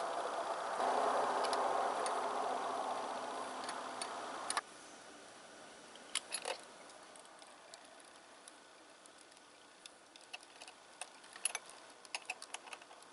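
Scattered light metallic clicks and taps from hands fitting a crimped battery cable and its terminal hardware. Under them, a faint steady hum cuts off about four and a half seconds in.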